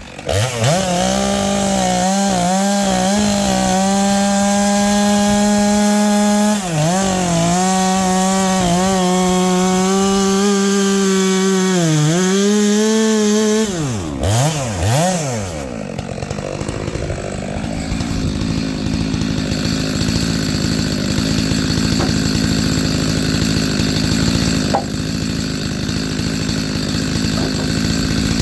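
Stihl MS 462 two-stroke chainsaw with a ripping chain, running at high revs with several brief dips in engine speed. From about sixteen seconds in, it settles into a rougher, noisier drone as it works through firewood.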